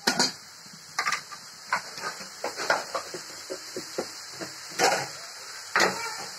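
Thick onion-and-spice paste frying in oil in a metal wok, bubbling and spitting with irregular sharp pops over a steady hiss. The loudest pops come right at the start, about a second in, and twice near the end.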